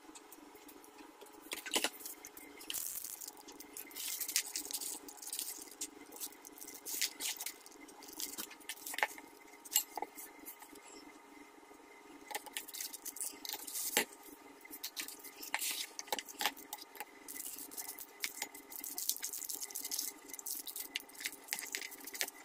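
Plastic wrapping and plastic-bagged hardware being handled: crinkling that comes and goes, with scattered light clicks of small metal and plastic parts knocking together.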